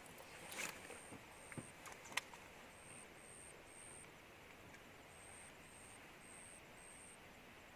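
Near silence, with a few faint clicks in the first two seconds and a faint high-pitched chirp repeated in short groups of two to four.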